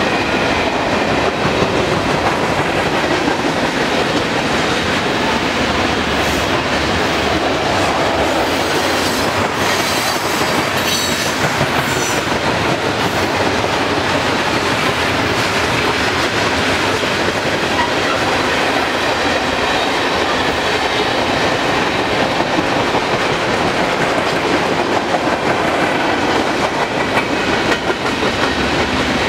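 Freight cars of a manifest train rolling past, a steady noise of steel wheels on the rails. A few brief high-pitched wheel squeals come between about six and twelve seconds in.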